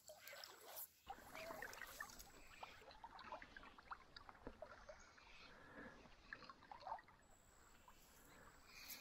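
Faint water sloshing and lapping around legs wading in a shallow river, with many small scattered ticks and splashes.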